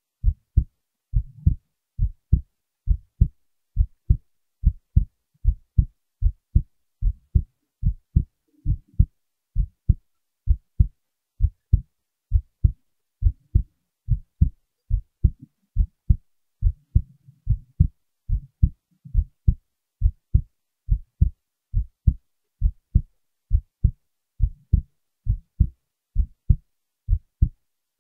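Recorded heartbeat: a steady, even rhythm of short, low thumps.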